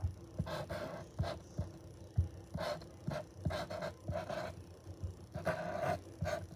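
Posca paint marker drawing short strokes on paper to outline lettering: irregular scratchy squeaks of the nib with light taps as it touches down.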